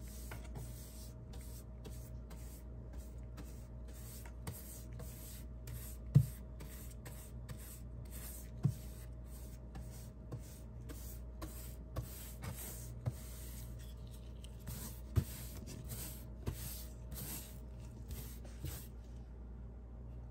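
Angled paintbrush swishing across a wall in quick repeated strokes, about two a second, laying on paint, with a few soft low knocks, the loudest about six seconds in. The brushing stops near the end.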